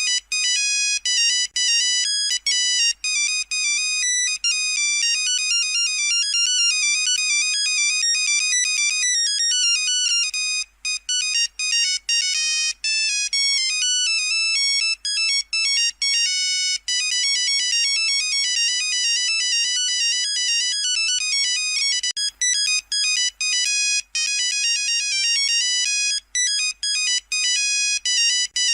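Nokia 3310 monophonic ringtone playing: a quick run of high electronic beeping notes, with short gaps between the notes and phrases.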